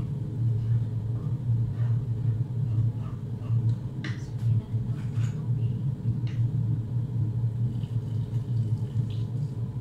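Wooden spoon stirring a thick sauce in a metal pot, with a few short scrapes and knocks, over a steady low hum.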